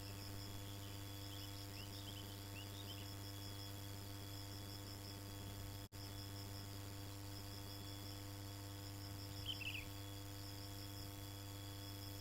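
Insects chirping in a steady, evenly pulsing trill over a faint, constant low hum. A few short, high chirps come early and again about three-quarters of the way through. The sound cuts out for an instant about halfway.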